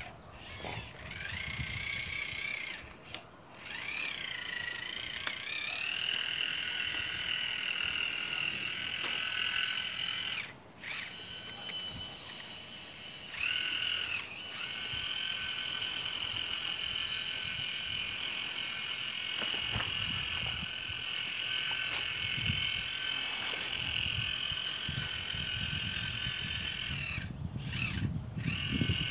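Kabolite radio-controlled excavator running, a continuous high whine whose pitch rises and falls as it tracks and moves its boom. The whine cuts out briefly a few times.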